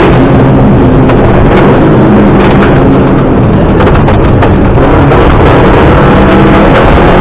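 Subaru Impreza rally car's flat-four engine running hard at speed on a rally stage, very loud, its pitch wavering slightly, with scattered knocks over it.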